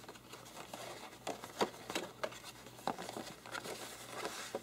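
Stiff posterboard being handled and folded up into a box shape: scattered light taps and rustles of the card.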